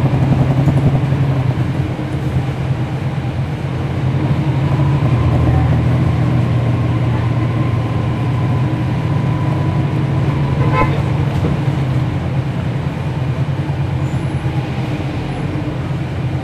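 Cummins ISL9 inline-six diesel of a NABI 40-foot transit bus, heard from on board, running with a steady low drone that falls off about two seconds in and rises again around four to six seconds in. A faint thin whine runs through the middle, and a single clunk sounds about eleven seconds in.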